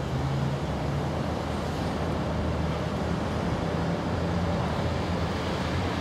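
Steady low rumble and hiss of distant road traffic.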